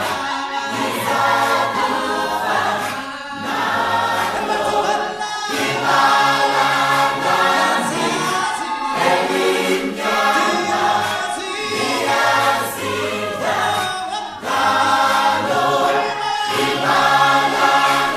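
A choir singing a song over instrumental backing, with held bass notes underneath the voices.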